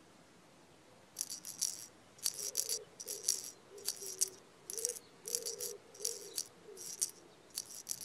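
A shaker rattling in short bursts, about two a second, starting about a second in, over a soft low tone: a light rhythmic music cue.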